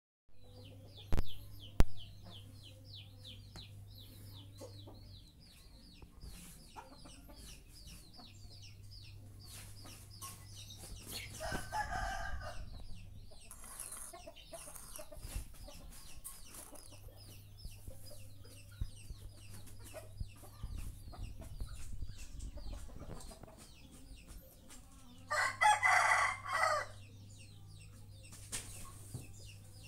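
A rooster crowing twice, each crow lasting a couple of seconds, the first about eleven seconds in and the second a little before the end, over a steady low hum with rapid high chirping in the first several seconds. Two sharp knocks come about a second in.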